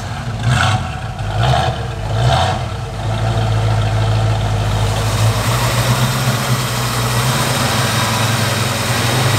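1968 Ford Mustang fastback's V8 engine running, with a few short rises in the first couple of seconds before it settles into a steady idle.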